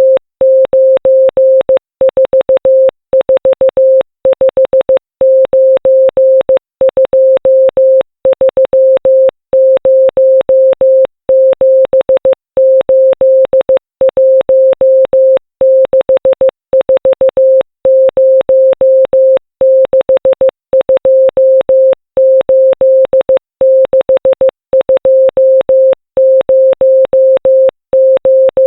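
A 528 Hz Morse code tone keyed on and off in short dots and longer dashes, sending the digits of pi as Morse numerals. Each tone element starts and stops with a faint click.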